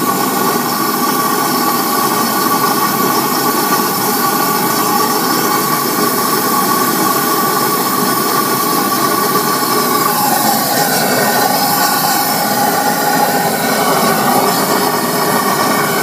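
Waste oil burner with a Hago siphon nozzle running steadily: the loud roar and hiss of the air-atomised oil flame, with a steady whistle in it. About ten seconds in the whistle wavers and shifts in pitch for a couple of seconds, as the LPG start-up gas is being turned down.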